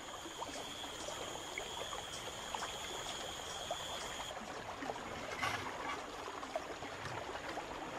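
Flood-swollen jungle river flowing fast past the bank, a steady rush of water with small splashes. A steady high whine runs over it and cuts off about four seconds in.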